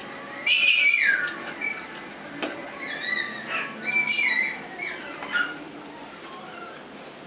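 Yorkshire terrier puppies yipping and whining in high-pitched cries while they play, including one falling whine about half a second in and a quick series of yips about three to four and a half seconds in.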